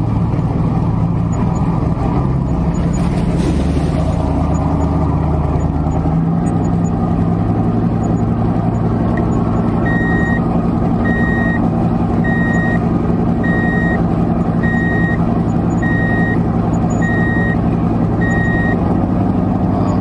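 Engine of heavy earthmoving machinery running steadily, its note shifting about six seconds in. From about ten seconds in, a reversing alarm beeps about once every second.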